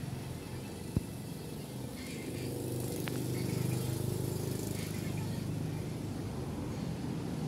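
Low, steady background rumble that swells gently toward the middle, with one sharp click about a second in and a faint tick a couple of seconds later.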